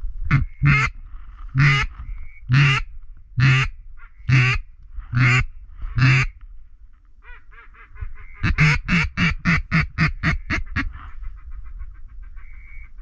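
Duck call blown in loud hen-mallard quacks: about eight evenly spaced quacks, then after a pause a quicker run of about a dozen that fade away, to call in ducks. A short, steady, high whistle note sounds between some of the quacks.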